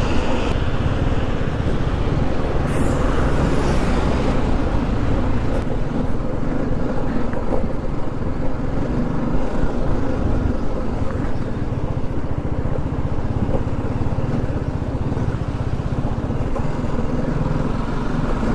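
GS adventure motorcycle's engine running steadily under way, with road and wind noise, as it rides from a smooth concrete bridge deck onto a rough gravel and dirt road.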